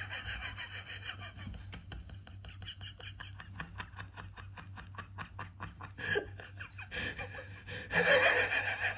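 Rapid rhythmic breathy huffing, about five pulses a second, fading after about six seconds, followed by a louder breathy burst near the end.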